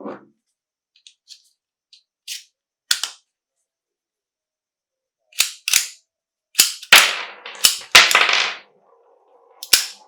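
A series of sharp metallic clacks from an FN M1900 pistol's mechanism being worked: a few light clicks, then louder snaps, two of them with a short rattling tail, in the second half.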